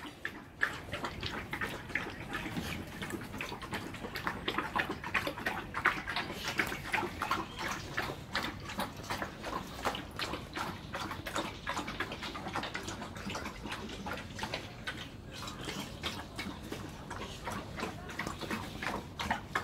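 Two XL American bully dogs eating from stainless steel bowls: a steady run of quick clicks and slurps.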